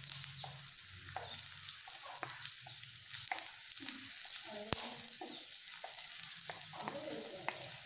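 Sliced shallots sizzling in hot ghee and coconut oil in a clay pan, stirred with a wooden spatula that clicks and scrapes against the pan now and then.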